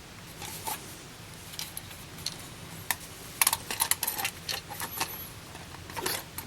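Scattered light clicks and clinks as a pin-and-sleeve connector's housing and parts are handled, with a quick flurry of clicks about halfway through.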